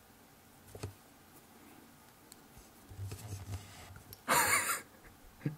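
Quiet watercolour painting: a few faint taps and clicks as one paintbrush is set down and another picked up. About four seconds in comes a short, loud rush of hiss lasting about half a second.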